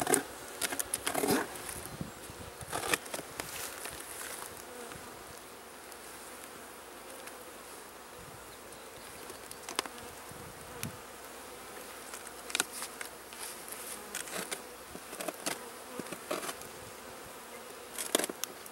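Honeybees from a nucleus colony buzzing steadily around their nuc box, an active colony, with scattered short clicks and rustles of handling.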